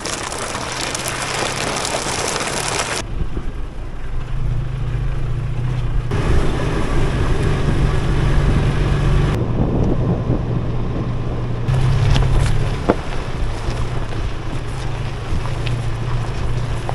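A vehicle driving: a steady low engine drone under road and wind noise, the hiss changing abruptly several times.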